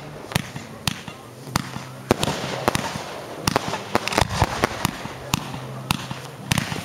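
Aerial fireworks bursting overhead: an irregular run of sharp bangs, several a second, some louder than others, from shells exploding in the sky.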